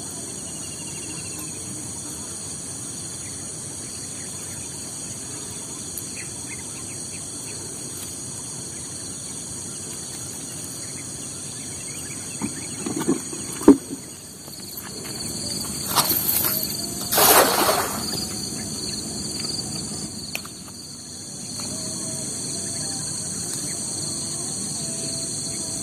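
Steady high-pitched drone of insects calling, with a few sharp knocks and a brief rush of noise just past the middle.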